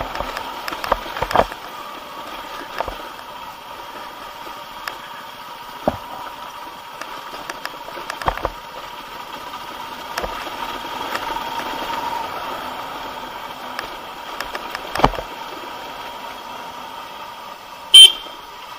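A motorcycle engine running at low speed while riding, heard with steady wind and road noise. Several sudden thumps break in, and one brief, sharp, very loud sound comes near the end.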